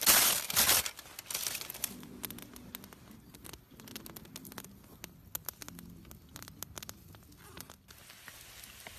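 Aluminium foil crinkled as it is pulled open around cooked food, a loud rustle in the first second, followed by faint scattered crackles and clicks.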